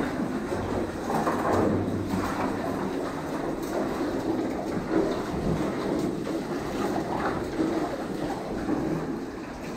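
Water splashing and sloshing as a caver crawls on hands and knees through a shallow cave stream over cobbles: a continuous uneven wash with small swells throughout.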